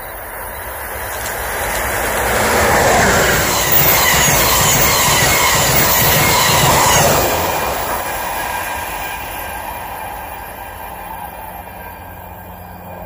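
A train passing close by: its wheel and rail noise builds over the first few seconds, is loudest through the middle, then fades away.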